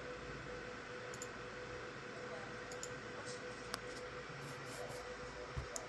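Steady low hum and hiss with a faint steady tone, broken by a few faint short clicks, about a second in, near the middle and near the end.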